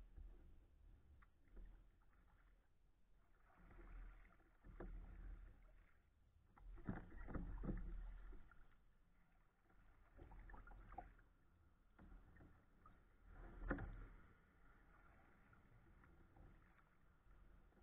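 Faint sounds of a kayak being paddled: paddle strokes dipping and splashing every few seconds, with a sharper knock about three-quarters of the way through.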